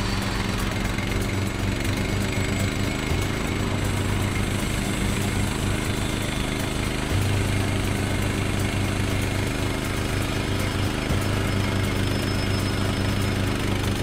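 Woodland Mills HM126 bandsaw mill running steadily, its gas engine driving the band blade through a pine log. The low engine hum grows stronger about halfway through as the blade works into the cut.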